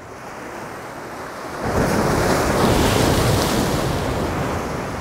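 Sea waves washing against the shore. A wave breaks with a splash of spray, swelling up about a second and a half in and slowly fading, with wind on the microphone.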